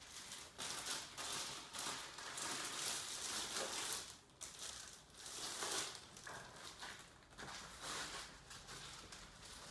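Rustling and crinkling handling noise, irregular and coming in surges, as a new English willow cricket bat is unpacked and turned over in the hands.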